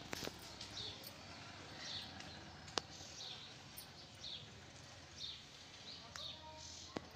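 Faint bird chirping in the background: short chirps repeated irregularly, about once a second. Two sharp clicks cut through, one about halfway and one near the end.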